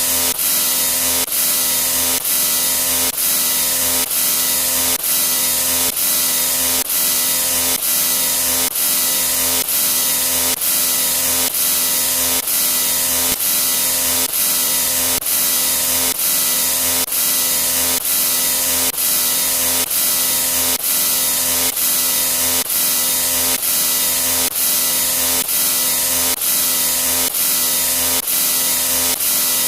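A loud, harsh hissing noise sound effect with a steady hum under it. It breaks off briefly and starts again about once a second.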